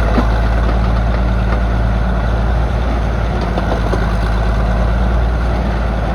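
Northwest excavator's engine running steadily at a low, even speed.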